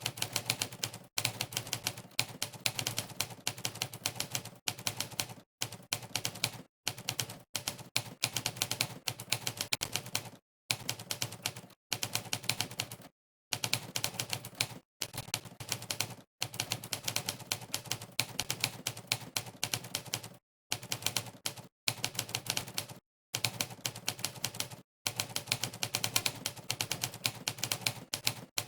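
Typewriter keystroke sound effect from the Monkeytype typing site, a sampled typewriter key strike played for every key pressed. It comes in fast runs of clicks broken every second or two by brief gaps of total silence.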